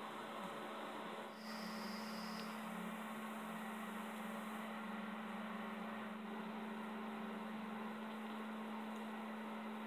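Steady electrical hum with a constant background hiss, and a brief high-pitched tone about a second and a half in.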